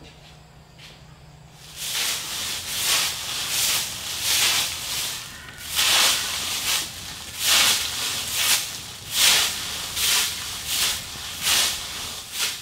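A run of rough swishing strokes, about two a second and somewhat uneven, starting about two seconds in.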